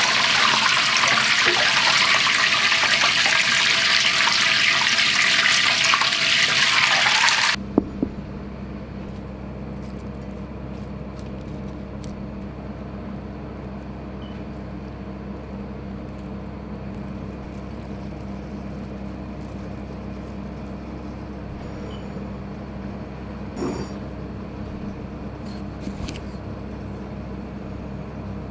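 Satsuma-age fish cakes deep-frying in hot oil: a dense, loud sizzle that cuts off abruptly about seven and a half seconds in. After that, a low steady hum with a few faint clicks.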